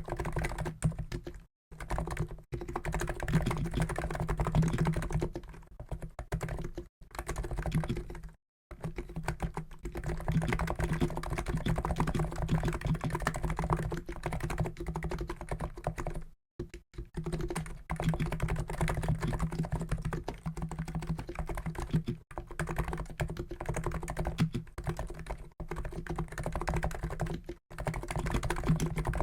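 Fast, continuous typing on a COX Endeavour keyboard with Niz electro-capacitive (EC) switches, 50 g actuation: a dense patter of keystrokes broken by a few short pauses.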